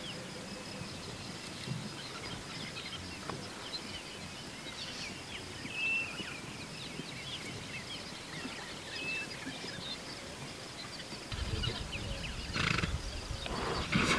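Bush ambience at a waterhole: small birds chirping over a steady high insect drone. Near the end a low rumble comes in, with two louder animal calls about a second apart.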